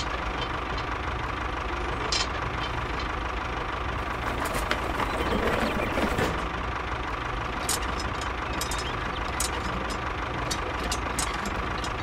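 Engine idling steadily, with a few light clicks as small toy parts are handled during the hitching of a planter to a toy tractor.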